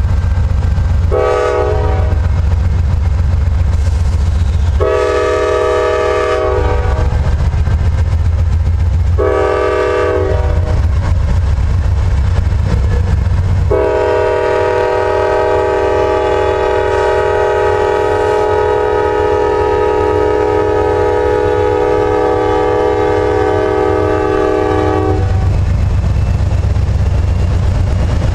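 Nathan K5LA five-chime air horn on a Norfolk Southern GE C44-9W locomotive sounding four blasts: three short blasts, then one held about eleven seconds. Under the horn runs the heavy low rumble of three GE C44-9W diesel locomotives hauling a loaded grain train past.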